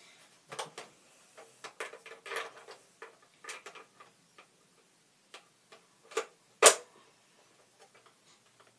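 Scattered plastic clicks and rattles from a Nerf N-Strike sonicFIRE Barrel Break IX-2 blaster being handled, with one loud sharp snap about two-thirds of the way through.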